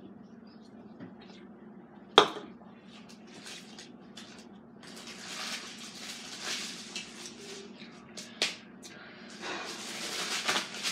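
Close-up eating sounds: sipping from a can of Red Bull, then one sharp knock about two seconds in as the can is set down on the table. Wet swallowing and chewing noises follow, and rustling of a snack wrapper or bag starts near the end.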